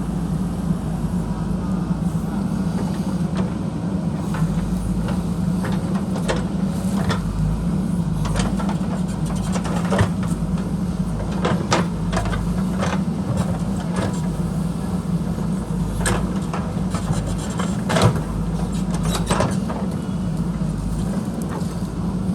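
JCB backhoe loader's diesel engine running steadily under load as it digs, with frequent irregular sharp knocks and clatters of the bucket striking rock and soil, the loudest about eighteen seconds in.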